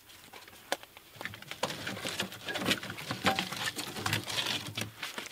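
Dry mesquite wood being handled and piled: an irregular run of clicks, snaps and rustles of branches knocking together, with a few sharper knocks.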